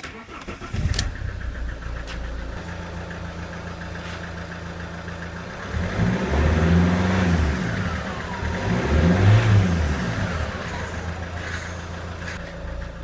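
Alfa Romeo 1.9 JTDM turbodiesel engine starting, then idling, revved up and back down twice about six and nine seconds in. The leaky lower turbo hose has just been replaced.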